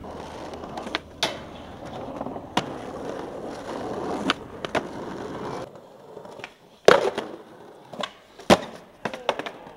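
Skateboard wheels rolling over concrete and asphalt, with a few sharp clacks of the board. The rolling stops about two-thirds of the way through, and several loud clacks and slaps of the board against the ground follow, the loudest about seven seconds in.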